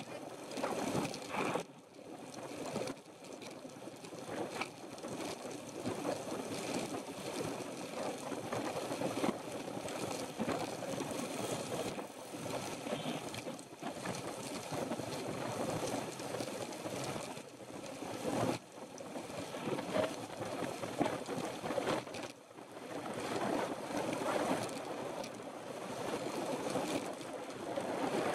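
Wind rushing over a bicycle-mounted camera's microphone as a road bike rides along at speed: an unsteady noise that rises and falls.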